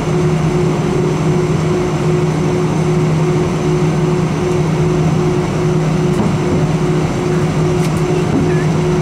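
Steady cabin noise inside an Airbus A319 airliner as it taxis with its engines at idle, a constant rush with a low, even hum under it.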